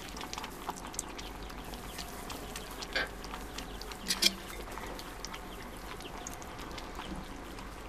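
Several kittens lapping milk from a metal bowl: a steady scatter of small, wet ticks, with two brief louder sounds about three and four seconds in, the second the loudest.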